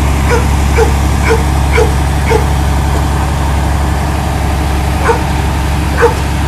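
A dog barking: a quick run of five short barks, about two a second, then two more barks near the end, over a steady low rumble.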